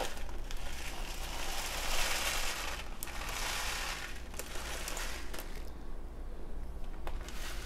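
Dry rice being scooped from a plastic bag with a measuring cup and poured into a steel bowl, the bag rustling and crinkling, in a few short washes of sound with light clicks, quieter near the end.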